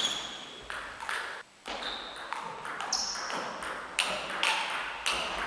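Celluloid-type table tennis ball struck back and forth in a rally: quick sharp clicks off the bats and table, several a second, some ringing briefly, echoing in a sports hall. The sound drops out for a moment about a second and a half in.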